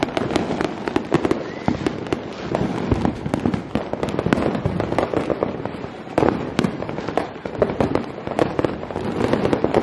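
Many fireworks going off at once: a continuous barrage of overlapping bangs and crackling firecracker pops, several a second, with aerial shells bursting overhead.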